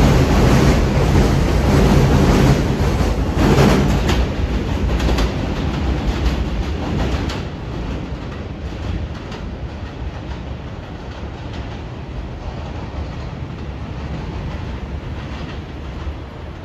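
New York City Subway F train pulling out of an elevated station, its wheels clicking over the rail joints. The sound is loudest for the first several seconds, then fades steadily as the train moves away.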